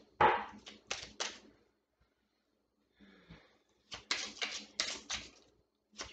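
A deck of oracle cards being shuffled by hand: two bursts of quick, crisp clicking, one at the start and another about four seconds in, with a pause between.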